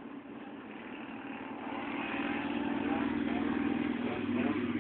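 Car engine and road noise heard from inside the cabin while driving, a steady hum that grows gradually louder.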